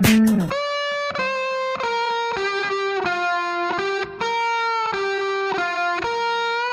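Music: an electric guitar plays a melody of held notes on its own, after the drums and the full band drop out about half a second in.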